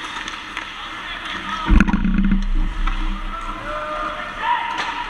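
Ice hockey play in a rink: skates scraping and sticks clattering on the ice, with a loud thump and rattle about two seconds in, like the puck or a player hitting the boards or the net. Players call out near the end.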